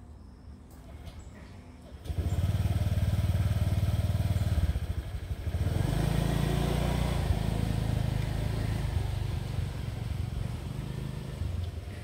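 A motor vehicle engine running close by, coming in suddenly about two seconds in and loudest in its low tones. Its pitch shifts a couple of times, and it slowly gets quieter near the end.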